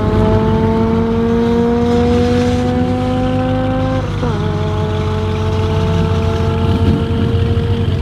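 Audi RS6 Avant's twin-turbo V8 running at low speed near the start line. Its pitch climbs slowly, drops suddenly about four seconds in, then eases slowly down.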